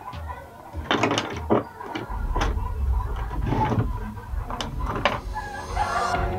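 Plastic clicks and knocks of a power plug being handled and pushed into a wall-mounted outlet strip, with a low steady hum setting in about two seconds in.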